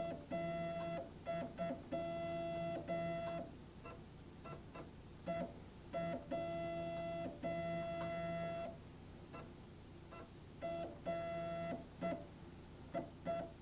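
STEPCRAFT desktop CNC's stepper motor whining at one steady pitch as the Z axis is jogged down toward the tool rack, in a series of starts and stops: several moves of one to three seconds, then a few quick short taps near the end.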